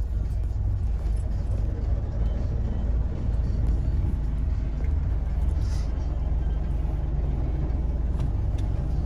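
Automatic car wash running, heard from inside the car's cabin: a steady low rumble of the wash machinery with water and coloured foam spraying over the windshield and body.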